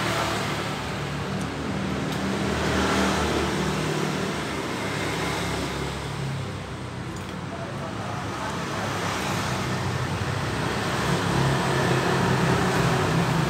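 Street traffic: motor vehicles passing, a steady wash of road noise with low engine hum that swells in the first few seconds, dips in the middle and rises again near the end.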